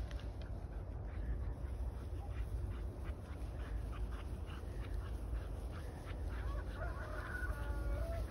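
Ducks quacking repeatedly over a steady low rumble of wind on the microphone, with a longer pitched call near the end.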